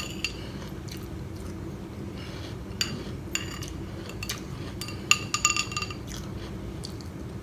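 Spoon clinking against a cereal bowl a few times, with a quick run of ringing clinks about five seconds in.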